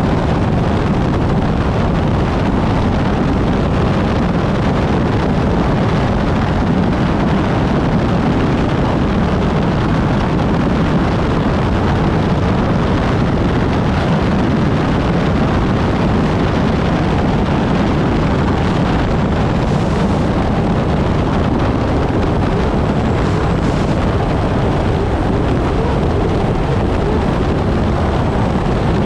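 Unlimited hydroplane's Lycoming T55 gas-turbine engine running at racing speed, heard onboard as a loud, unbroken rush of engine and wind noise that holds an even level throughout.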